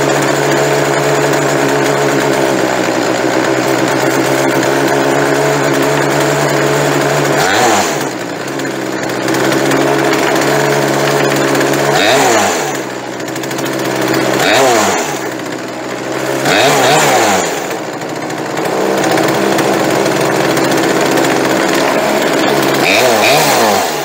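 Poulan two-stroke chainsaw engine running at a steady idle, then revved up and let back down five times with quick throttle blips. With its idle turned up and carburetor freshly adjusted, it idles and revs cleanly and sounds pretty good.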